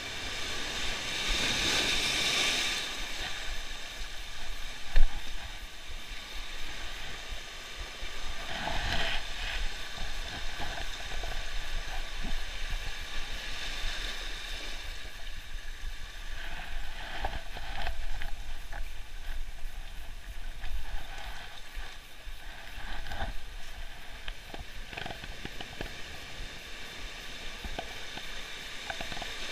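Sea waves surging and washing in over a shallow shore, with scattered knocks and one sharp knock about five seconds in.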